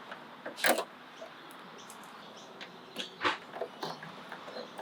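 Hand ratchet and 10 mm socket working the door mirror's mounting bolts: scattered sharp clicks and light metallic knocks, one under a second in and a cluster around three seconds in.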